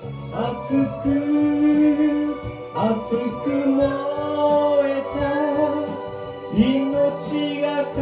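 Live band performing a Shōwa-era anime song, with a vocalist singing long held notes that slide up into pitch over the instrumental accompaniment.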